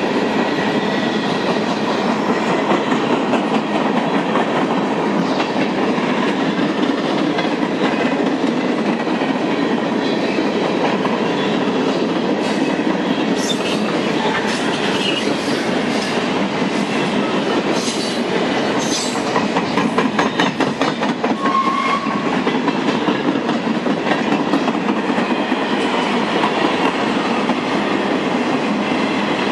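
Freight train cars rolling past: bulkhead flatcars, covered hoppers and boxcars. Steel wheels make a steady rumble on the rails with clickety-clack over the joints, and the clicks turn sharper and more frequent near the middle.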